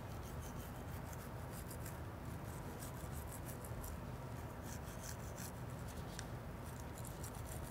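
Faint scratchy rubbing of a toothbrush-style oral-care swab scrubbing inside a patient's mouth: many short, irregular strokes over a low steady hum.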